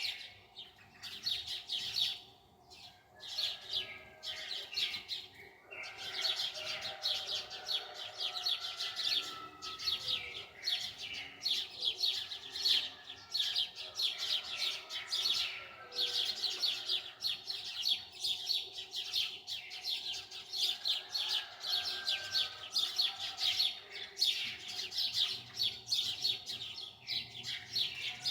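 Small birds chirping and twittering in a dense, continuous chatter of rapid high trills and short warbled phrases, with brief lulls a few seconds in.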